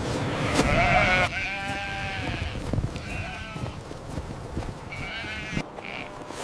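Sheep bleating several times in wavering calls, over a dense rushing noise that drops away abruptly about a second in.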